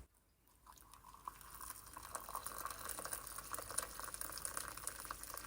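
Faint steady hiss of water, starting about a second in after a moment of near silence, with a few faint ticks.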